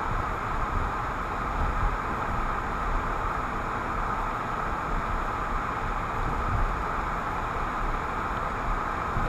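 Car driving: steady road, tyre and engine noise heard inside the cabin through a windshield dash camera, with a low rumble underneath.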